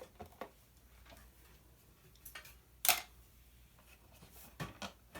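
Scattered small clicks and taps of a screwdriver and plastic parts being handled while a screw is worked out of the vacuum's small circuit board, with one sharper click about three seconds in.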